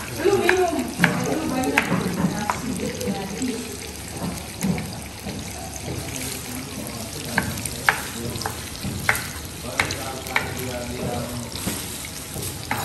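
Chef's knife chopping on a wooden cutting board, sharp taps in two runs about half a second to a second apart, over the steady sizzle of tomatoes and garlic frying in oil in a pan.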